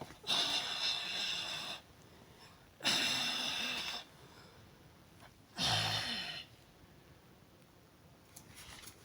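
Three short bursts of hissing spray, about a second apart, from a can of aerosol smoke-detector test smoke aimed at a smoke detector. The detector is already in pre-alarm and is being pushed on into full alarm.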